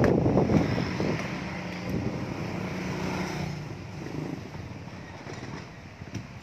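A motor vehicle engine running with a steady low hum, loudest at the start and fading gradually.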